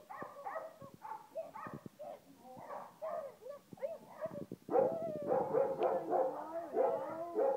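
Samoyed puppy giving a run of short, high yips and whines, getting louder and more continuous about five seconds in.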